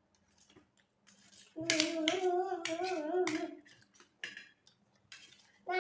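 A child's voice holding one drawn-out, sung-like note for about two seconds, followed by a few short clicks near the end.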